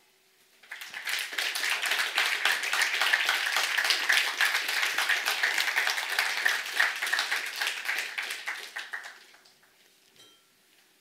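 Audience applauding. The clapping starts about a second in and dies away near the end.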